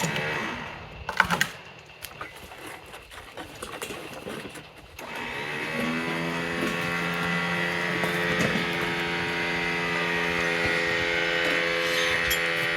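A few sharp knocks, then about five seconds in a chainsaw throttles up and runs steadily at full speed, as in bucking a downed tree into logs.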